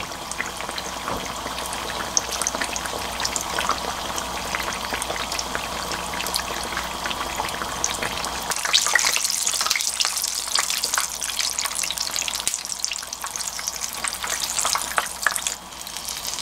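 Hot oil sizzling and crackling around red-bean-filled doughnuts deep-frying in a small frying pan, getting louder and busier about eight and a half seconds in.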